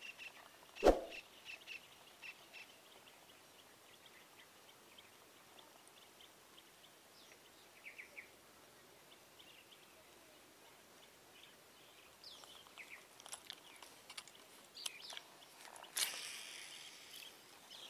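Faint birdsong chirping over quiet outdoor ambience, with one sharp knock about a second in. Near the end comes a short rushing swish as a fishing rod is cast.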